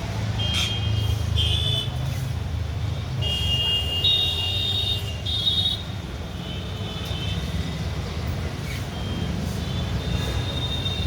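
Steady low rumble of street traffic with short, high, flat chirps or beeps coming and going over it, several in the first half and a few more near the end.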